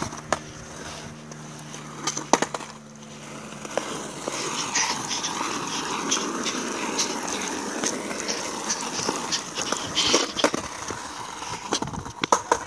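Skateboard riding: a steady rolling noise from the wheels sets in about four seconds in, with several sharp clacks of the board.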